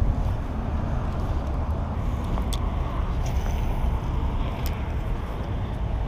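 Steady low rumble of road traffic, with two light clicks about two and a half and four and a half seconds in.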